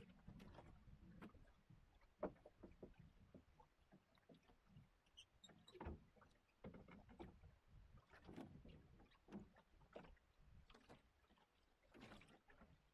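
Faint water lapping and sloshing against the hull of a small wooden sailing boat under way, with scattered light knocks and clicks from its rigging and fittings.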